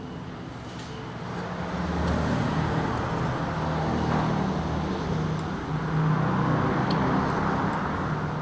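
Road traffic: a motor vehicle's engine running close by, its low hum swelling about two seconds in and staying loud until near the end.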